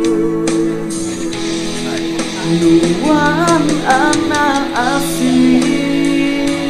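A song with plucked guitar and singing.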